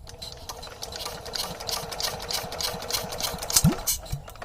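Sewing machine running, stitching with a fast, even run of ticks over a steady hum, then stopping shortly before the end. A low thud comes about three and a half seconds in.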